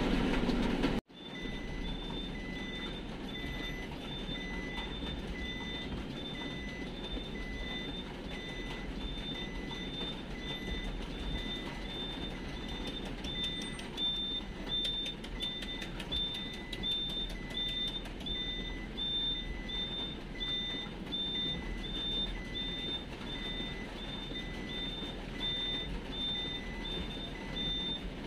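Vehicle reversing alarm beeping at an even pace, about two beeps a second, over the steady running of the engine, heard from inside the cab as the vehicle backs up.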